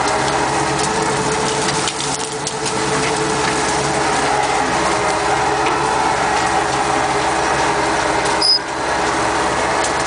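Kirovets K-700 tractor's diesel engine running steadily under load, heard from inside the cab, with scattered crackling and snapping of brush and branches being pushed over. A single sharp knock about eight and a half seconds in.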